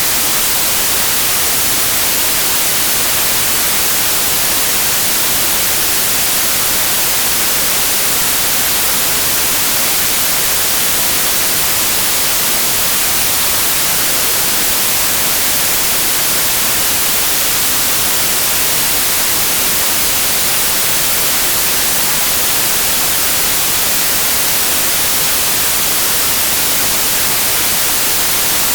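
Generated white noise: a steady, unchanging hiss at a constant level, played as a masking sound for tinnitus.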